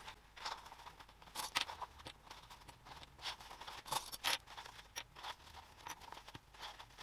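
Red plastic sewing clips being unclipped and set down, making scattered faint clicks, with rustling from the fabric being handled.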